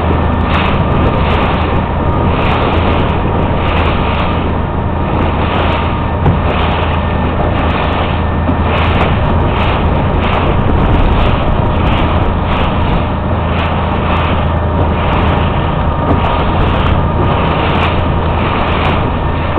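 Motorboat engine running steadily under way, with water splashing and rushing past the hull in repeated surges.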